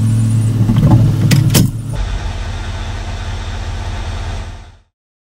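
A motor running with a steady low hum, with a couple of sharp clicks; about two seconds in the sound changes abruptly to a thinner hum, which fades out near the end.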